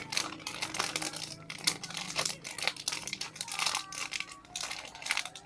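Plastic packaging crinkling and rustling in irregular crackles as a squishy toy is handled in its bag.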